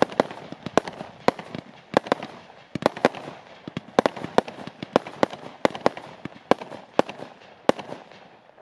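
Two WCKD consumer fireworks cakes, Energyzer and Megatron, firing side by side: a fast run of sharp bangs, two or three a second, with a steady crackle between them. The bangs stop near the end as the cakes finish.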